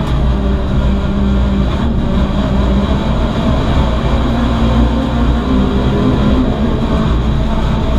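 In-cabin sound of a VW Lupo GTI race car's 1.6-litre four-cylinder engine running hard at racing speed, a loud steady drone with heavy road and wind noise through the stripped cabin.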